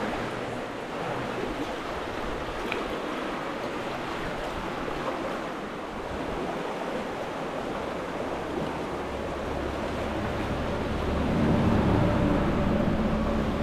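Flowing stream water rushing over rocks, a steady even hiss. About eleven seconds in it grows louder, with a low rumble added beneath.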